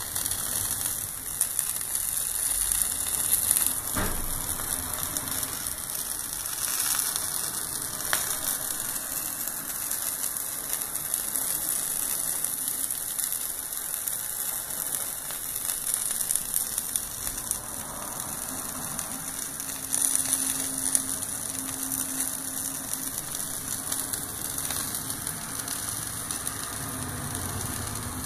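Andouilles de Jargeau, pork chitterling sausages, sizzling steadily on an indoor electric grill, their fat bubbling and spitting, with a few sharp pops.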